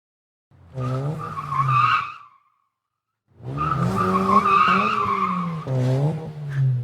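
Car tyres squealing with an engine running, in two bursts with a clean silence between them: the first about two seconds long, the second about three and a half.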